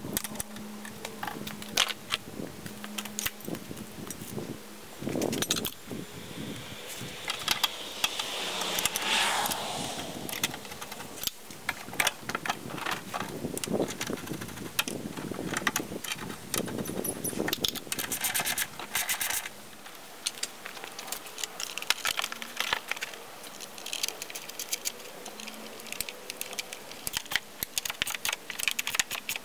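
Metal hand tools and loose bolts clinking and rattling while engine parts are fitted in a car's engine bay, many sharp irregular clicks and clinks. A falling whine comes about eight seconds in.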